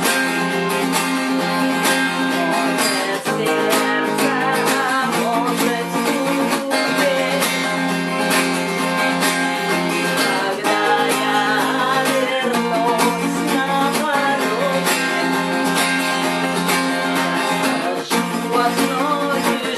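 Acoustic guitar being strummed, playing a song's chords steadily.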